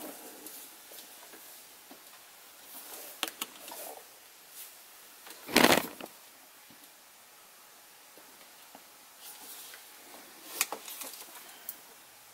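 Handling noise from a 1/10-scale RC crawler's Cherokee body being held and turned by hand: scattered light clicks and rustles. A louder thump comes about five and a half seconds in, and a few more clicks come near the end.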